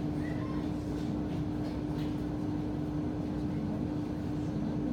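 Sanriku Railway diesel railcar running along the line: a steady drone of engine and wheels, with one held tone over a low rumble.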